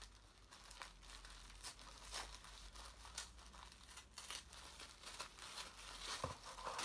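White paper wrapping crinkling and crackling in irregular bursts as a small gift is unwrapped by hand.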